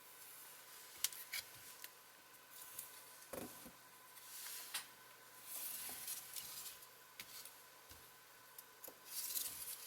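Pencil scratching in short strokes as a line is traced around a window template, with small clicks and knocks from handling the template against the wall.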